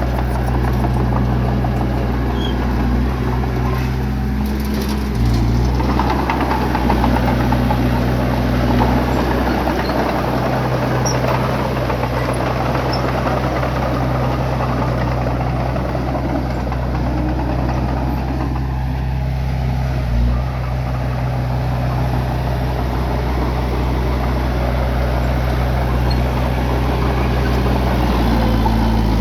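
Bulldozer diesel engine running steadily, its pitch shifting slightly a few times, with a noisy rumble over it.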